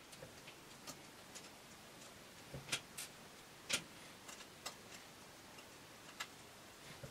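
Faint, irregular small clicks and ticks of a precision T5 Torx screwdriver backing out the tiny trackpad screws of a MacBook Pro, with two louder clicks a little before the middle.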